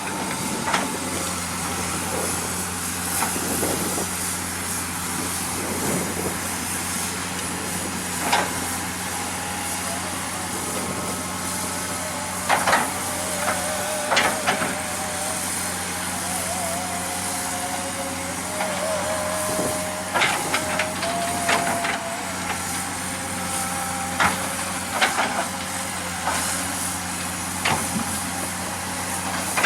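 Heavy construction machine's diesel engine running steadily, with scattered sharp clanks and knocks. A wavering squeal comes and goes in the middle.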